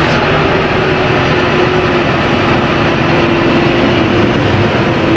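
Tractor engine running steadily under load with the muck spreader working: a loud, even mechanical noise with a steady hum.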